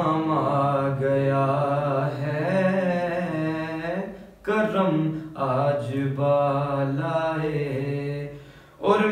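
A man reciting a naat, singing a slow, ornamented melodic line on drawn-out syllables. He breaks off briefly for breath about four seconds in and again near the end.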